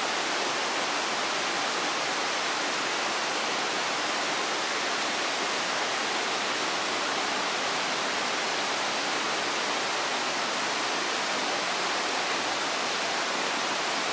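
Steady rushing of a tall mountain waterfall and the white water tumbling over the boulders of the stream below it, even and unbroken throughout.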